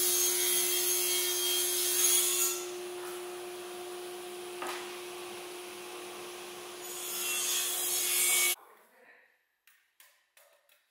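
A power tool working wood: a steady motor hum under a loud hiss that eases off for a few seconds and then builds again before stopping abruptly. A few light clicks follow near the end.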